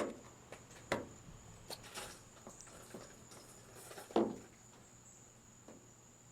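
Flathead screwdriver prying at a clip on a truck's fuel filler hose assembly: a few scattered clicks and knocks, the loudest about four seconds in.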